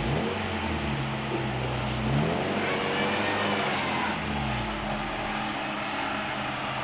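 Car engine revving as it drives up a slippery wooded trial climb, the pitch rising about two seconds in and dropping back a couple of seconds later as the throttle is worked.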